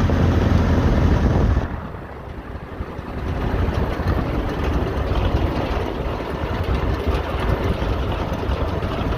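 Boat engine running: a steady low hum that drops away sharply about two seconds in, giving way to a rougher, noisier rumble.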